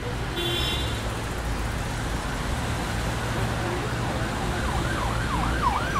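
Steady street noise with a low hum, and near the end a siren starts up, its pitch sweeping quickly up and down about three times a second in a yelping pattern.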